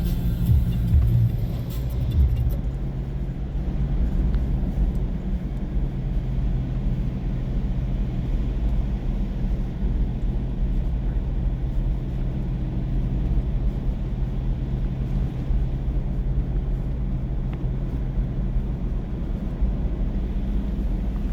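Mahindra Bolero Neo's diesel engine and road noise while driving, a steady low drone.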